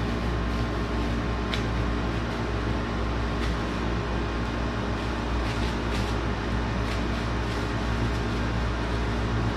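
Steady hum of a room air conditioner, with a few faint clicks and rustles of paper towel being handled.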